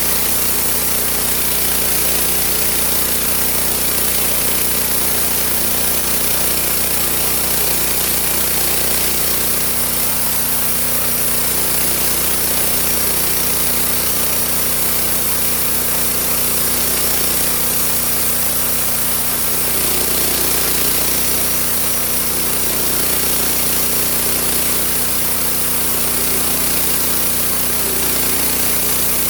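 Homemade sawmill running steadily, its drive droning under the noise of the blade sawing through a log.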